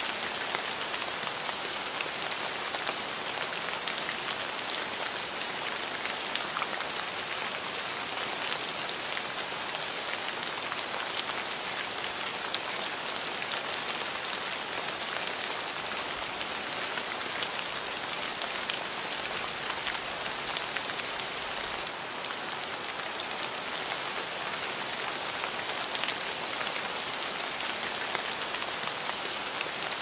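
Steady rain falling: an even hiss made of many small drop impacts, with no let-up.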